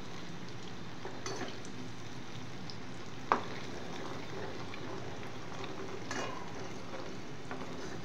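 Ghee sizzling and bubbling in a metal pot, the water cooked out of the cream so the milk solids are frying in the butterfat, while a metal ladle stirs and scrapes through it. There is one sharp clink of the ladle against the pot about three seconds in.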